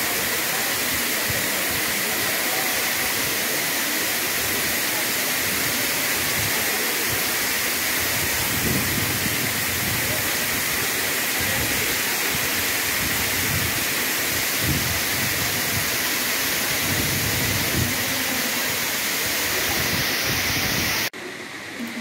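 Waterfall: a steady rush of water falling over rock into a pool. About a second before the end it cuts off abruptly to much quieter background.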